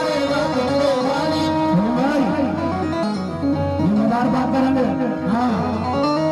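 Live qawwali music on harmonium and drums, with low notes that swoop up and down in pitch again and again.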